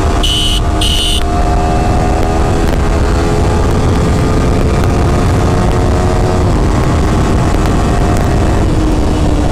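The Yamaha R15 V4's 155 cc single-cylinder engine runs at a steady, even note while cruising, under a loud rush of riding wind on the microphone. Two short, high beeps sound close together right at the start.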